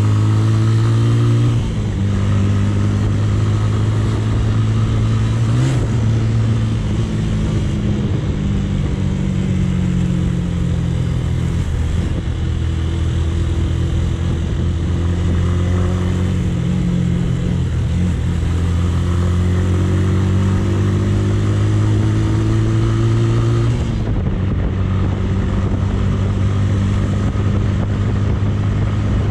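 Romet K125's 125cc motorcycle engine running under way, heard from the rider's seat. Its pitch climbs steadily as the bike pulls and drops sharply a few times, settling lower near the end.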